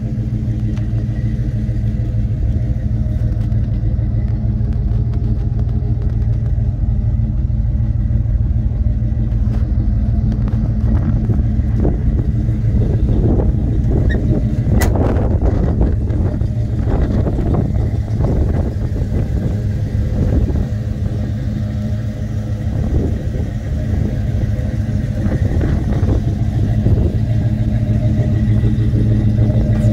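Performance crate engine of a 1979 Pontiac Firebird Trans Am idling steadily, with a low even hum. A single sharp click about halfway through.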